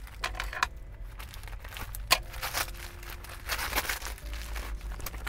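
A brown paper mailer bag is torn open by hand and the plastic-wrapped clothing inside is pulled out. Paper tearing and plastic crinkling come in several short bursts.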